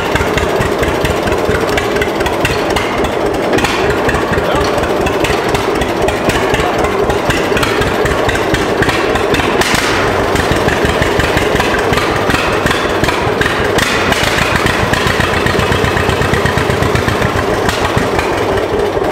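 John Deere BO's two-cylinder engine running with a steady stream of regular firing pulses, which the owner thinks is running out of gas.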